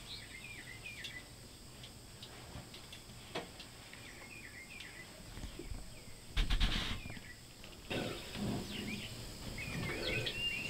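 Small birds chirping in short, repeated twittering phrases over a faint outdoor background, with one short, louder noise about six seconds in.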